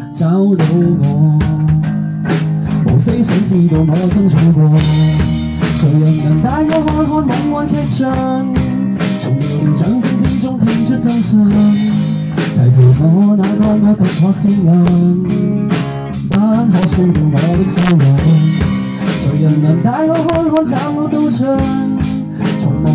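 A small live band playing a pop-rock song: drum kit, bass guitar and guitar, with a male singer on the microphone.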